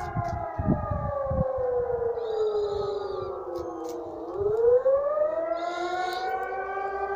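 Civil defense siren wailing, several tones together. Its pitch falls slowly for about three seconds and then climbs back up.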